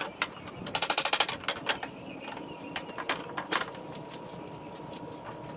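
Hand tools working nailed pallet boards loose: a quick rattling run of clicks about a second in, then scattered sharp taps and knocks of metal on wood.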